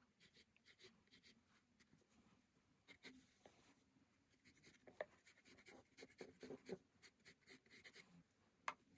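Faint pencil strokes on sketchbook paper: a run of short scratches as lines are drawn, with a couple of sharper ticks of the lead on the page.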